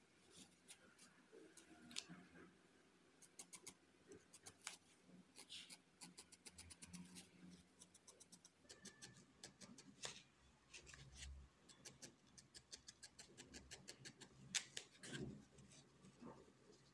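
Faint, rapid clicks in runs of several a second: a barbed felting needle stabbing into wool to fix the legs and wings onto a felted goose doll.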